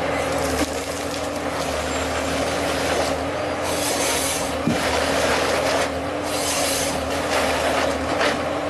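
Forestry harvester's engine running steadily while the harvester head works a tree, with two bursts of rasping noise about three and a half and six seconds in, and a sharp knock between them.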